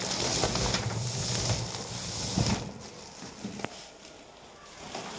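A woven plastic sack of flour rustling and crinkling as it is handled down into a galvanized metal storage bin. A dull thump comes about two and a half seconds in, and a short click about a second later.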